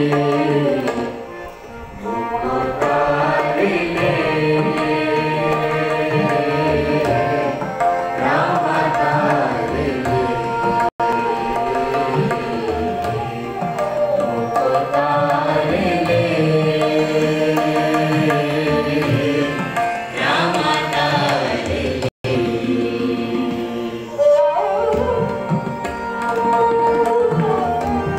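Sikh Gurbani kirtan: a hymn sung with harmonium and tabla accompaniment, a bowed string instrument playing along. The sound drops out for an instant twice.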